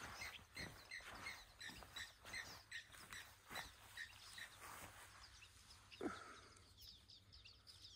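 Faint bird calling: a string of short, evenly spaced chirps, about two and a half a second, that stops about five seconds in. One short, louder sound about six seconds in.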